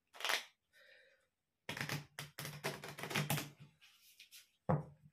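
A deck of playing cards being shuffled by hand: a quick snap of cards at the start, a dense rapid clatter of cards for about two seconds in the middle, and another short snap near the end.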